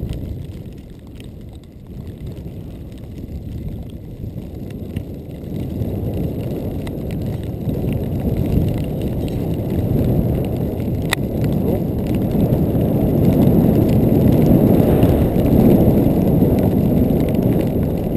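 Wind rushing and buffeting over the microphone of a camera carried by a skier going downhill through deep powder, growing steadily louder as speed builds. One sharp click about eleven seconds in.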